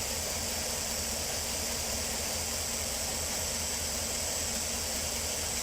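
Chevrolet Tahoe / GMC Yukon V8 engine idling steadily, with a misfire on cylinder 3 that the mechanic puts down to a broken bearing, a stuck valve or a weak lifter.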